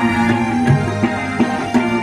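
Live band playing an instrumental passage of a Bengali song: sustained keyboard notes over guitar and a steady hand-drum beat.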